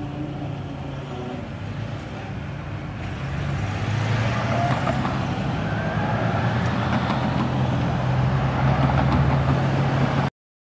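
Road traffic resuming over a railroad crossing: cars and vans drive across the tracks over a low steady engine hum, getting louder about three seconds in. The sound cuts off suddenly near the end.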